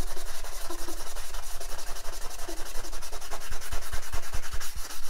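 Sanding-grit sponge scrubbed rapidly back and forth over a wet plastic Amiga 1200 case part, wet sanding to strip the paint off. A few low knocks come in the second half.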